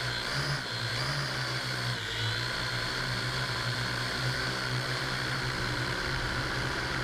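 Parrot AR.Drone 2.0 quadcopter's electric motors and propellers whirring steadily, a low hum under a high whine that dips briefly and comes back up about two seconds in.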